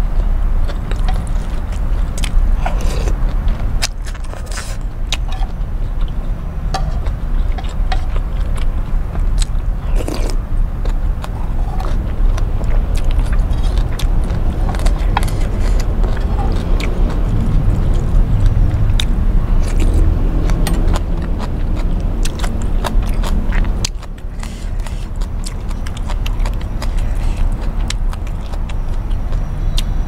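Close-miked eating sounds: a metal spoon scraping and clinking against an enamel bowl, with chewing, over a steady low rumble.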